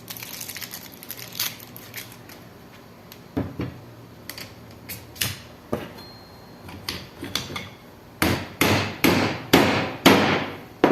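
A hammer tapping a new ball bearing down onto the rotor shaft of a window AC fan motor. Light scattered taps come first, then about seven harder blows, roughly two a second, near the end, each ringing briefly, as the bearing seats against its stop.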